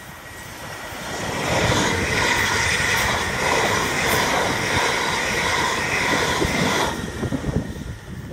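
South Western Railway electric multiple-unit train passing at speed close by, its wheels on the rails making a dense rushing roar. The roar grows over the first second and a half and stays loud for about five seconds as the carriages go by. It drops off sharply near the end as the last carriage passes, leaving a fading rumble.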